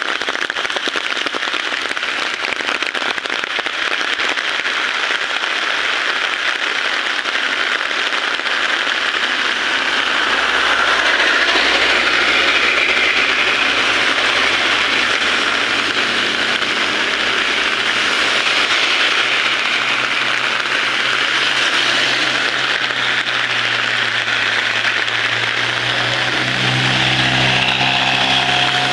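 Heavy rain falling steadily. Near the end a motor vehicle's engine grows louder as it approaches.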